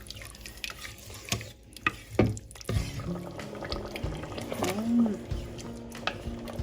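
Spoon stirring thick beef stew in a metal pressure cooker: wet, squelching stirring with scattered clinks and knocks of the spoon against the pot.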